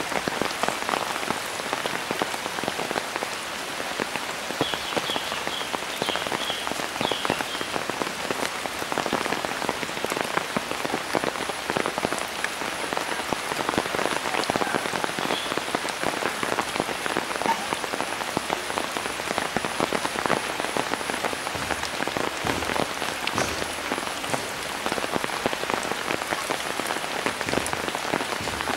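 Heavy rain falling on the surface of flooded creek water: a dense, steady patter of drops. A few short high chirps sound briefly about five seconds in.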